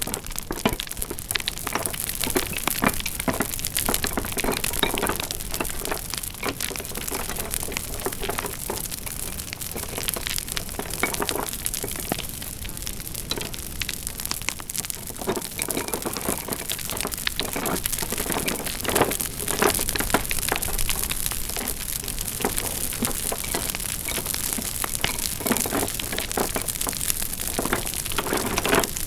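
Wood fire crackling: a steady, dense run of small cracks and pops.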